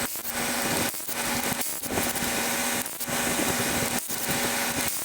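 Cordless power tool running in repeated trigger bursts of about a second each, five or so with short breaks between, its motor giving a steady whine under the noise.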